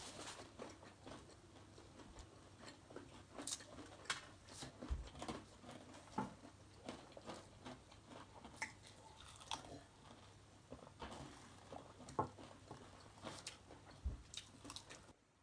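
Close, quiet eating sounds: chewing and biting on fried chicken, with many small irregular crisp clicks and smacks.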